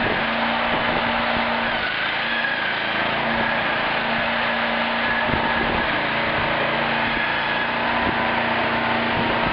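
Heavy demolition machinery running steadily: an engine holding one steady low tone under a wash of mechanical noise, with a few dull knocks about halfway through and again near the end.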